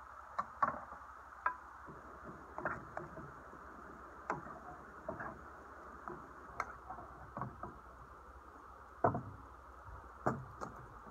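Wooden spoon stirring and knocking against a cooking pot on a camp stove, irregular knocks and scrapes with a few clinks of utensils on the table, over the steady hiss of the gas burner.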